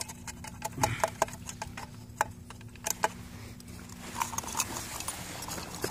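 A thin metal rod tapping and scraping inside the crucible of a graphite Cadweld (exothermic welding) mold, probing the small tap hole at its bottom: a run of small, irregular clicks.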